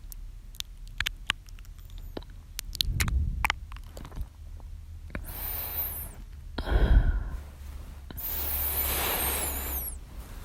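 Close-miked male mouth sounds: a run of small, sharp wet lip and tongue clicks, then three breaths, the last and longest lasting about two seconds near the end.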